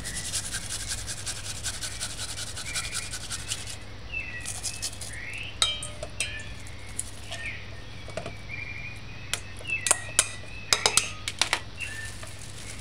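Half an onion being grated on a flat metal hand grater over a stainless steel bowl: quick rasping strokes for the first few seconds, then scattered metallic clinks and taps as the grater knocks against the bowl and is set down.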